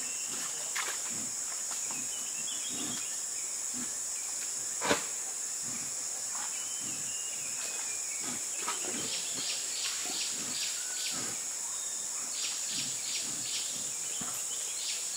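Steady high-pitched drone of insects in tropical forest, with scattered bird chirps and calls over it. A single sharp click about five seconds in.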